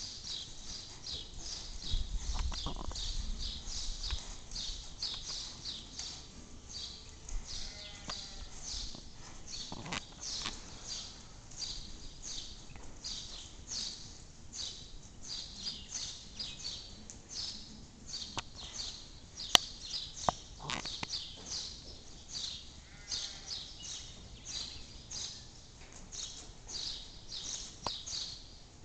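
Gypsy Vanner horse's hooves striking and scuffing loose sand arena footing, a steady rhythm of soft hissing beats about two to three a second. A single sharp click about two-thirds of the way through.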